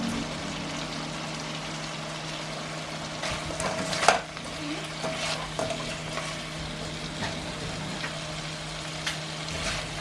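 Food frying and sizzling in a pan while being stirred. A utensil knocks and scrapes against the pan, loudest with a sharp clank about four seconds in.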